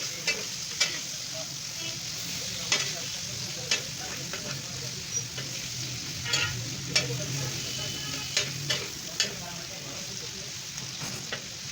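Marinated chicken pieces sizzling as they fry in ghee on a hot tawa while being stirred and turned. There is a steady hiss, with irregular sharp clicks of a utensil against the pan.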